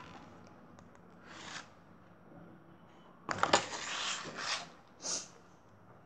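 Pages of a picture book being handled and turned. There is a soft paper swish about a second and a half in, then a louder rustle with a few clicks from about three seconds, and a short swish near the end.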